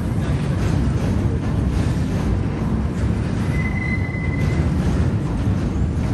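MittelrheinBahn Siemens Desiro ML electric multiple unit rolling slowly past with a steady low rumble of wheels on rail. About three and a half seconds in there is a brief high-pitched wheel squeal.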